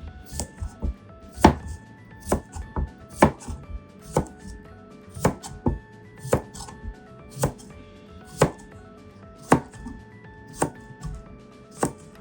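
Kitchen knife cutting cucumbers on a cutting board, with sharp knocks about once a second and lighter ones between, the steady pace of a rolling cut.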